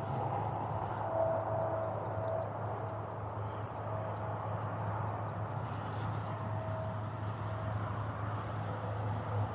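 Distant diesel locomotive approaching at low speed, its engine a steady low hum. A high, even ticking runs over it at about four ticks a second.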